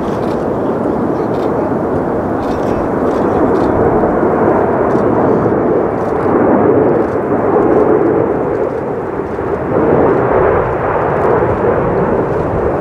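Four GEnx-2B jet engines of a Boeing 747-8 Freighter on landing approach, heard as the aircraft passes low and close: a steady rushing jet noise that grows louder a few seconds in and stays loud, swelling and easing slightly.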